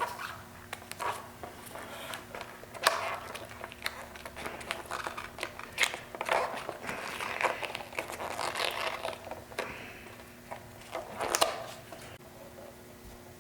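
An old, brittle vinyl decal being peeled off a heated plastic motorcycle part: irregular crinkling, scratchy peeling noises in short bursts, over a faint steady hum.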